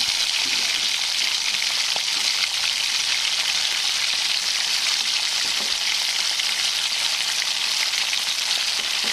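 Dosa batter sizzling steadily in ghee on a hot dosa griddle as its underside cooks.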